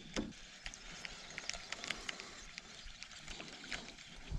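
Faint, irregular small clicks and taps over a quiet background.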